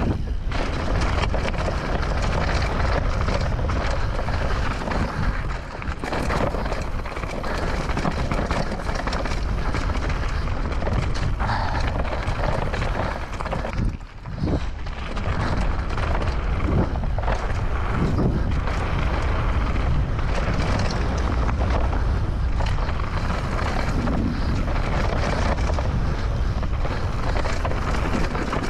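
Mountain bike riding fast down a dirt and gravel trail, heard from a bike- or rider-mounted camera: wind buffeting the microphone, tyres crunching over dirt and stones, and rattles and knocks from the bike over bumps. The sound dips briefly about halfway through.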